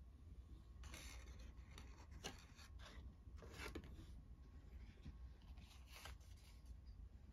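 Faint rustling of a paper wrapper being handled and lifted off a cake, in several brief rustles.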